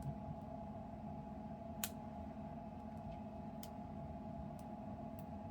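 Sharp, faint clicks of a lock pick working the pin stack of an ABUS Titalium 64TI/40 padlock during single pin picking: four or five isolated ticks spread a second or so apart, over a steady low hum.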